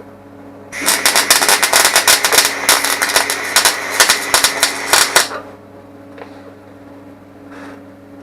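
Welding arc crackling in one burst of dense, rapid spitting that starts about a second in and cuts off about four seconds later, over a steady low hum.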